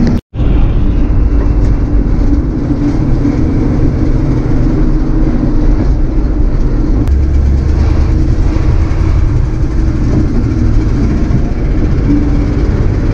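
Big-block 454 V8 grain truck running loaded down the road, a steady engine and road drone as heard from inside the cab, with a very brief break near the start.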